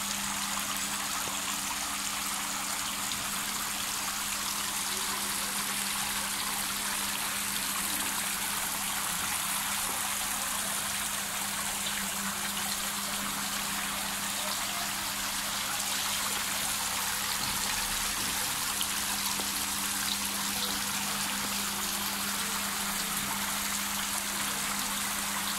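Scrap-metal sculptured fountain running: water streaming off the edges of its corrugated metal roof and splashing into the water of its round basin, a steady, even patter. A steady low hum sits underneath.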